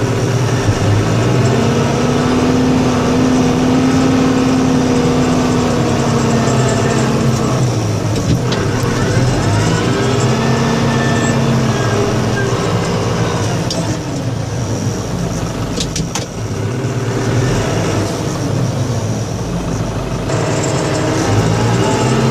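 Engine of a snow-plowing vehicle running under varying load, its pitch rising and falling several times as it revs and eases off. There is a brief dip with a few sharp clicks about two-thirds of the way through.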